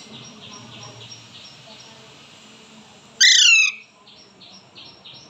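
Baby parakeet chirping in a quick, even series of short high notes, then about three seconds in one loud squawk that falls in pitch, followed by more chirps.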